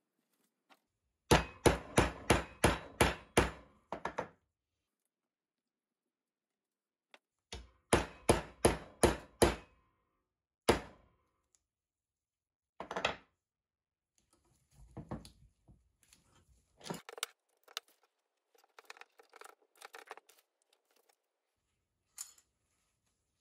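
Small metal-headed hammer tapping a knife's wooden handle scales in two quick runs of sharp strikes, about four a second, then a couple of single taps. Lighter clunks and rattles of metal C-clamps being handled follow near the end.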